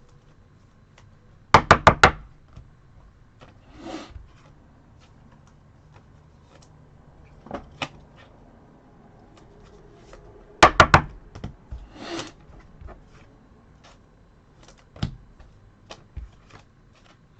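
Trading cards and foil packs being handled on a table: two quick runs of about four sharp taps, each followed by a short rustle, with scattered light clicks between.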